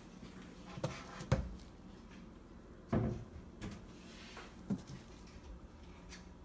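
Wooden kitchen cabinet doors being handled and opened: about five short knocks and thumps, the loudest a little after one second and at three seconds, over a low steady hum.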